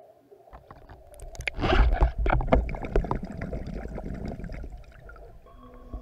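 Water gurgling and bubbling with a low rumble and clicks. It swells to a loud rush about a second and a half in, then fades out over the next few seconds. Faint background music comes in near the end.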